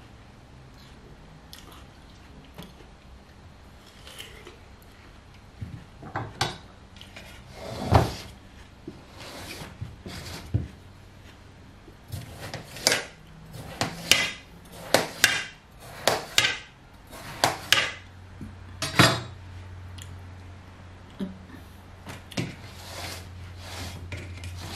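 Knife cutting through watermelon rind and knocking against a stainless-steel tray: a run of sharp knocks and clinks, busiest in the middle. A low steady hum comes in near the end.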